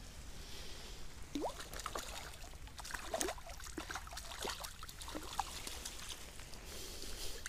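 Small splashes and water drips in shallow lake water at the bank as a hooked trout is brought to a landing net: a scattered run of short plops and drips, thickest between about three and five and a half seconds in.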